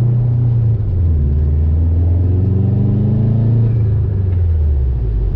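Turbocharged Subaru Impreza GC8's flat-four engine pulling hard under load. The revs dip about a second in, climb again, then fall off about four seconds in.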